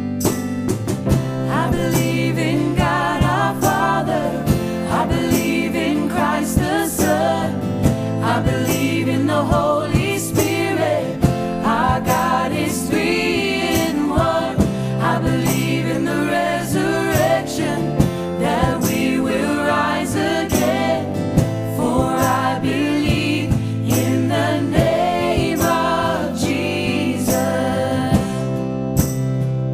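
Christian worship song: a mixed group of men's and women's voices singing together over instrumental backing.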